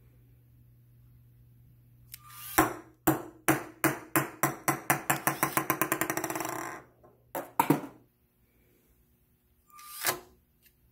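A small ball dropped from a LEGO Spike Prime robot claw bounces on a wooden table. The knocks come faster and faster until they run together into a rattle and stop, and two more knocks follow. A short whir from the claw's motor comes just before the drop, and again near the end.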